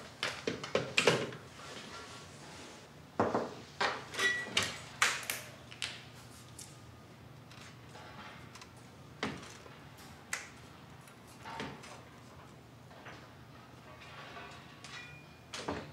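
Clicks and knocks of a door being handled and opened, with a run of knocks in the first few seconds, then a few single soft knocks as people come into the room.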